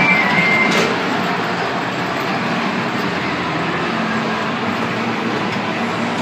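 Overhead-rail pirate-ship ride running: a steady mechanical rumble, with music fading out and a single click in the first second.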